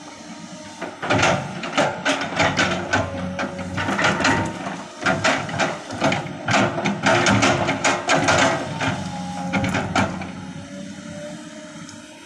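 Komatsu PC200 excavator's diesel engine running steadily under a rapid, irregular series of sharp knocks and clatter, which die away near the end.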